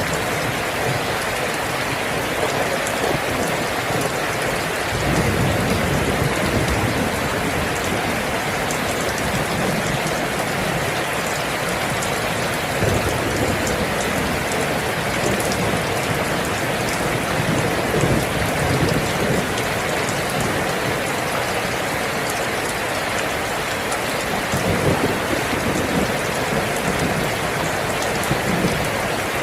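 Steady, heavy rain falling, an even hiss of many drops with no let-up.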